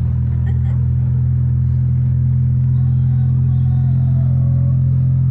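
Steady low drone of road and engine noise inside a moving car's cabin.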